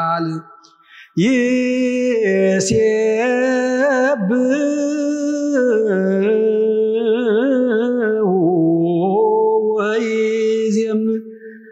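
A man chanting solo in Ethiopian Orthodox Ge'ez zema (a wereb), drawing single syllables out into long melismatic runs with wavering, ornamented pitch. There is a short pause for breath about a second in.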